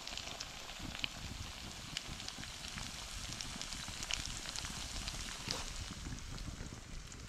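Walleye pieces frying in oil in a skillet over a wood campfire: a steady sizzle with scattered sharp crackling pops.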